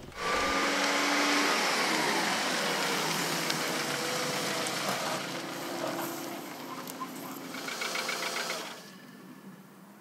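Volkswagen Polo hatchback driving off with its engine running; the engine note dips and then rises in pitch. The sound drops away sharply near the end.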